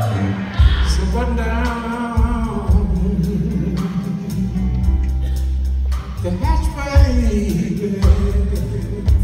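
Live blues band playing a slow song: electric guitar, electric bass and drums, with a male voice singing over them.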